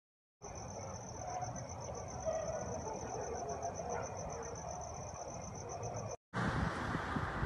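Crickets trilling steadily over a low outdoor background noise. The sound cuts out for a moment about six seconds in and comes back as a louder, rougher noise.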